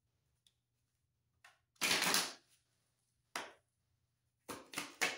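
A tarot deck being shuffled by hand: four short bursts of cards rustling and slapping together, the longest and loudest about two seconds in.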